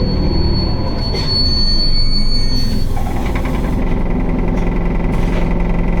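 Isuzu Erga city bus (QDG-LV290N1) running under way, heard from inside the cabin: steady diesel engine and road noise, held in fourth gear. A thin high squeal runs for about the first three seconds, with a brief hiss near the end of it, and then a steadier, lower whine sets in.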